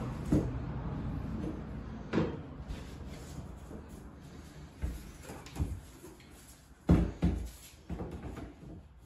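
Plank flooring being laid: planks handled, set down and knocked into place on the subfloor, with a scatter of sharp knocks and clacks, the loudest about seven seconds in.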